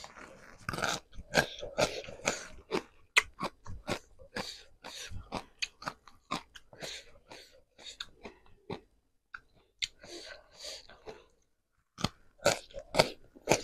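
Close-up sound of a person chewing food: a quick, irregular run of crisp crunching bites with wet mouth sounds, pausing briefly near the end before the chewing resumes.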